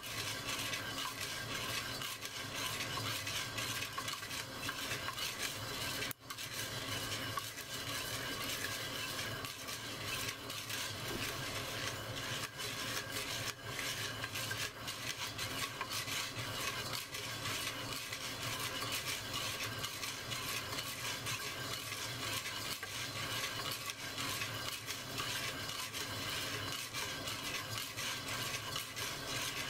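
Coffee beans being stirred in a clay pot as they roast: a steady, dense rattle and scrape of beans tumbling against the pot.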